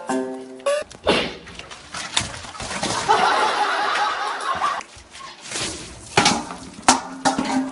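People laughing, with a few sharp knocks about a second in and again near the end.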